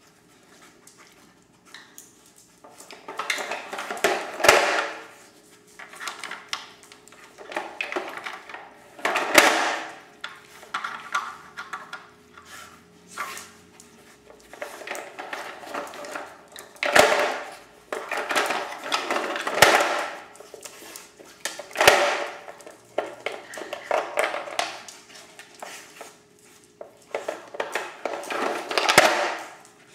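Hard plastic dog treat puzzle shoved and knocked about on a tile floor by a dog nosing for treats: irregular clattering and rattling, with about half a dozen sharp, loud knocks.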